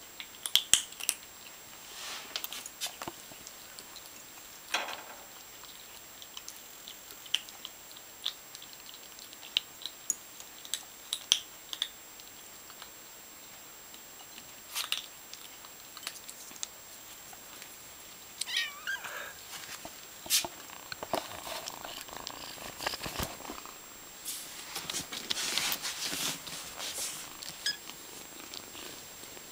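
Two kittens crunching dry cat kibble from their bowls: short, crisp crunches scattered irregularly. In the second half, a kitten mews a few times as they move about.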